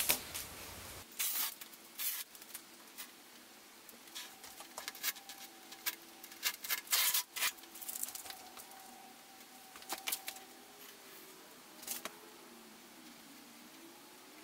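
Masking tape being peeled off the rail of a freshly epoxied surfboard and handled, heard as scattered soft crackles and clicks with a small cluster of them midway.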